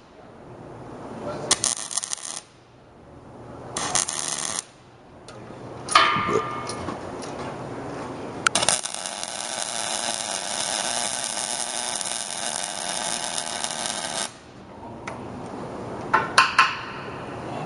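Stick-welding arc crackling and hissing on steel square tubing: several short welds of about a second each, then one continuous bead of about six seconds, then more short bursts near the end.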